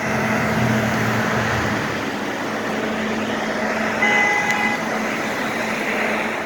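Building ventilation exhaust blowing with a loud, steady rush and a steady low hum under it. A brief high-pitched squeal comes about four seconds in.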